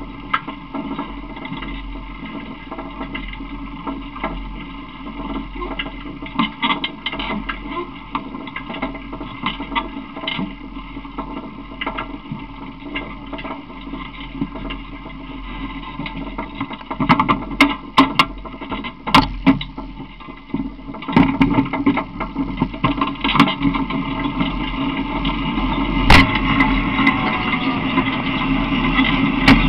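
Running noise of a small open vehicle rolling along, with rattles and sharp knocks from about halfway through, and louder toward the end.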